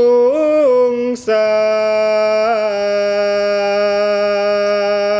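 A man's solo voice singing in slow Javanese tembang style, drawing each syllable out into long held notes. The pitch steps up and back near the start and breaks briefly after about a second. It then settles into one long held note with a slight waver partway through.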